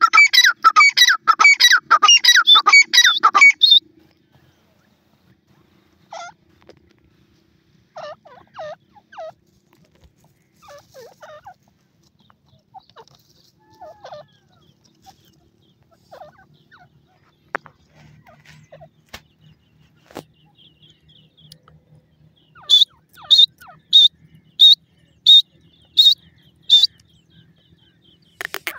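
Pheasant calls: a loud rapid run of falling notes, about three a second, for the first few seconds, then scattered softer calls. Near the end comes a series of about eight sharp high calls, a little over half a second apart.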